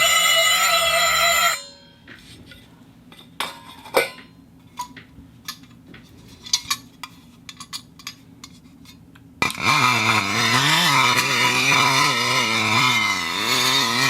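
Steel parts of a camera follow focus rubbing against each other: a loud wavering metallic squeal that stops abruptly, several seconds of small scattered clicks and knocks, then the squeal starts again about nine and a half seconds in.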